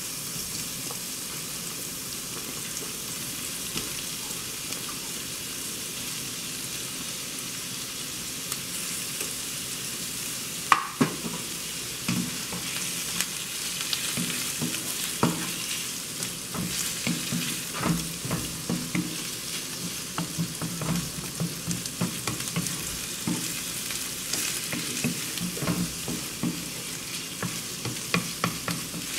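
Raw shrimp and diced red onion sizzling steadily in oil and butter in a skillet. About eleven seconds in there is one sharp knock. After that a wooden spoon stirs them, scraping and tapping against the pan again and again.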